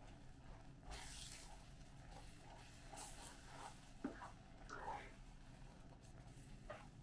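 Faint squelching and scraping of a silicone spatula stirring thick creamy sauce in a nonstick frying pan, with a small click about four seconds in.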